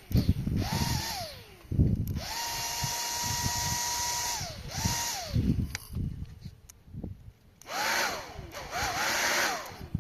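Small electric motor of a miniature washing machine switched on and off in short runs, five times: each time its whine climbs quickly to a steady pitch, holds, then falls away as it stops, the longest run lasting about two seconds. Uneven low knocking and rumbling underneath.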